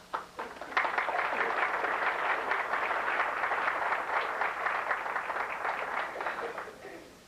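Audience applauding: a few scattered claps that swell within the first second into full applause, then die away near the end.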